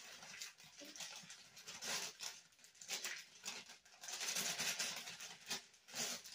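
Thin plastic bag of brownie mix crinkling and rustling in irregular bursts as it is shaken and squeezed empty over a plastic mixing bowl. The rustling is busiest from about four seconds in.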